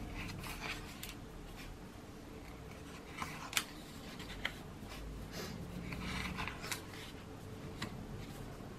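Pages of a sticker book being turned and pressed flat by hand: a string of short, faint paper flicks and rustles.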